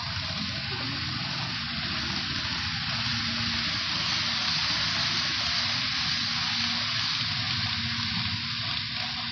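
Steady rushing hiss, a little louder in the middle.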